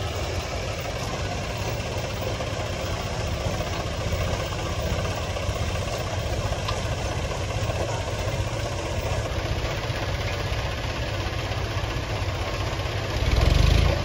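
Tractor diesel engine idling steadily, with a brief louder low rumble near the end.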